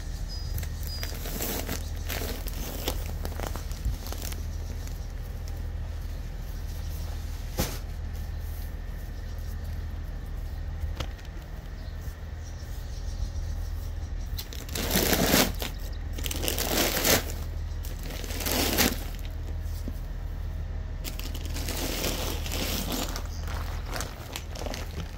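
A paper-and-plastic feed sack being handled, rustling and crinkling in several short bursts over a steady low hum.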